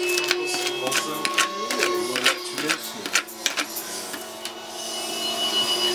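A table knife scraping butter across dry toast: a rapid scratchy crackle that stops about three and a half seconds in.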